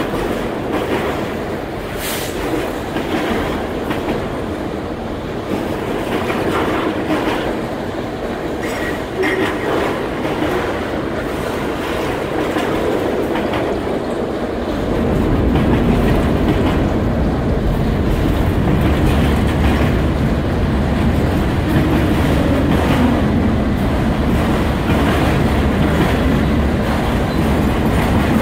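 Freight train of autorack cars rolling past close by: a steady rumble with wheels clacking over rail joints. The rumble deepens and grows louder about halfway through.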